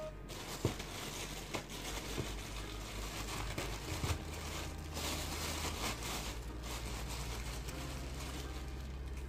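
Clear plastic bag of crushed cookies crinkling as it is handled and opened, with scattered short crackles.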